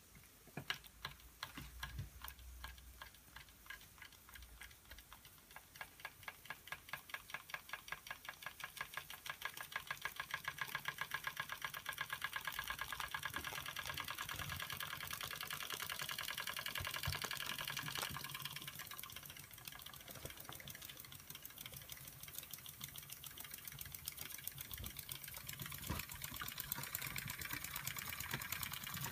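Doll dual-boiler toy steam engine started by a flick of its flywheel, its single cylinder puffing steam in a rhythmic clicking beat. The puffs start slow and widely spaced, then quicken and grow louder until they blur into a rapid steady chuffing as the engine comes up to speed.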